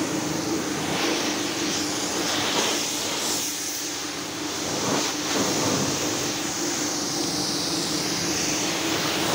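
High-pressure washer spraying a jet of water onto a vehicle's body: a steady hiss of spray over the continuous hum of the washer's motor-driven pump.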